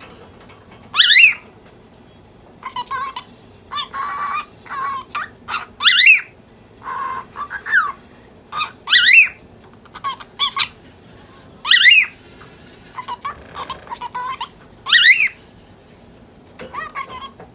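Cockatiel chattering in short mimicked-speech phrases, broken by five loud, shrill, sweeping calls about three seconds apart.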